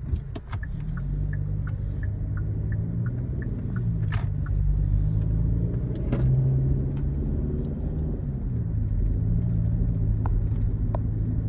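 Car driving: steady engine hum and road rumble, the pitch rising and falling slightly. A run of light, evenly spaced ticks sounds during the first few seconds.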